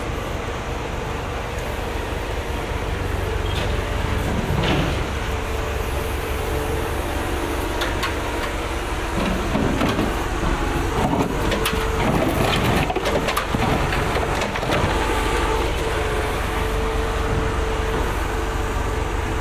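Street traffic with heavy vehicle engines running: a steady low engine rumble and hum, with scattered knocks and clicks around the middle.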